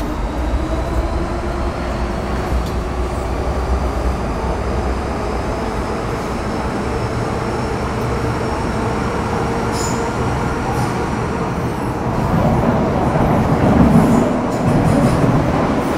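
MTR Metro Cammell M-Train (GEC GTO chopper traction) running as it gathers speed: the traction whine rises slowly in pitch over steady wheel-on-rail rumble. The running noise grows louder about three-quarters of the way through, with a few sharp ticks.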